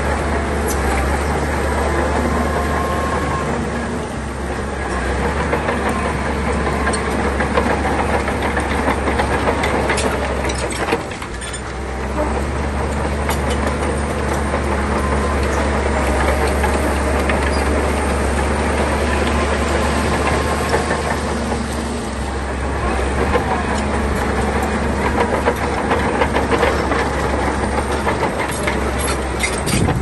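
Shantui crawler bulldozer's diesel engine running steadily under load, with the clatter of its steel tracks. The sound dips briefly about eleven seconds in.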